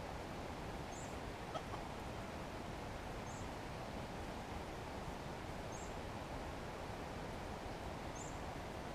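Steady outdoor forest ambience, with a faint, short, high chirp repeating about every two and a half seconds.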